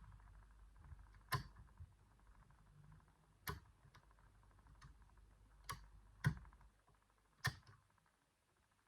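Faint, irregular clicks of a homemade pick working the levers of a Stuv eight-lever safe lock, about five sharper clicks spread out among a few softer ones.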